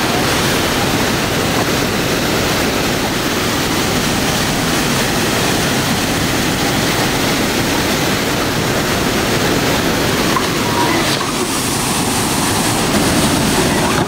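Rushing whitewater of river rapids and a waterfall: a loud, steady rush of water.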